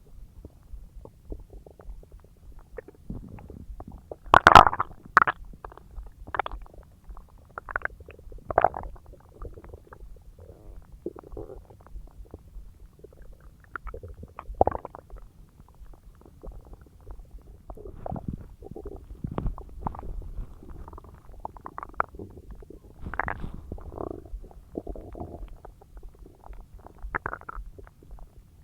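Human stomach and intestines gurgling and rumbling while digesting a large meal: irregular squelching gurgles over a low rumble, the loudest about four and a half seconds in.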